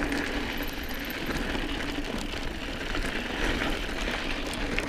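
Mountain bike rolling over a loose, rocky dirt trail: a steady rumble of tyres on gravel with many small clicks and rattles.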